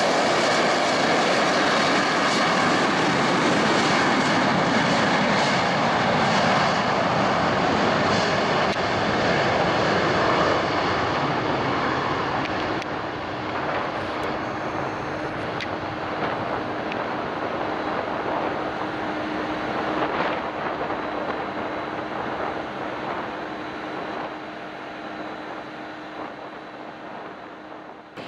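Boeing 737 jet engines at takeoff power during the takeoff roll and climb-out: a loud, steady jet noise that fades gradually from about ten seconds in as the airliner moves away, with a steady hum underneath in the second half.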